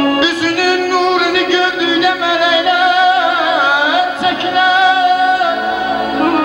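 Male mugham singer holding long, ornamented vocal phrases with no clear words, over electronic keyboard accompaniment. His voice wavers and bends in an ornament about halfway through.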